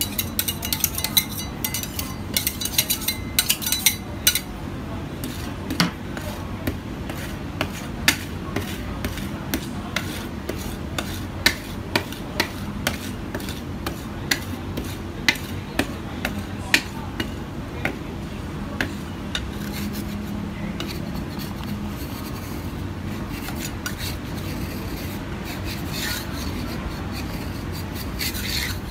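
Metal spatula scraping and tapping on a stainless-steel ice-cream cold plate, working a frozen layer of ice cream. Quick clicks come in the first few seconds, then sparser sharp taps, and later a steadier scrape as the frozen sheet is pushed up into rolls.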